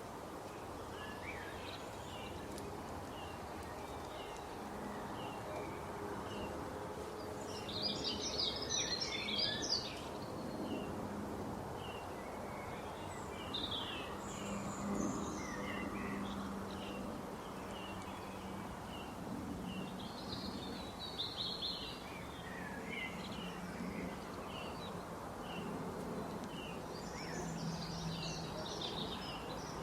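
Small birds chirping over a steady background hiss: short high chirps repeat about once a second, with bursts of busier twittering about eight seconds in, around twenty seconds in and near the end.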